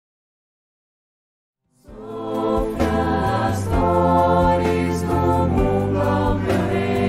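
Silence for about two seconds, then music starts and quickly reaches full level, with singing voices over a steady bass.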